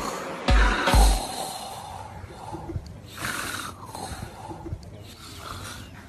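A man snoring, several drawn-out rasping snores with small snorts, left bare after two last deep bass-drum beats of the snore remix in the first second.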